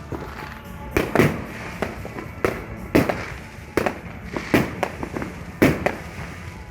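Fireworks and firecrackers going off in a steady barrage: sharp bangs at uneven intervals, about one or two a second, over a background of more distant popping.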